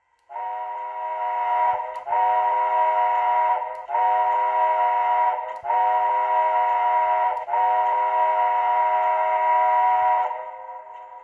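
Multi-chime steam locomotive whistle from the sound decoder of an On3 model locomotive, played through its small onboard speaker. It gives five long blasts with short breaks, the last the longest, then dies away.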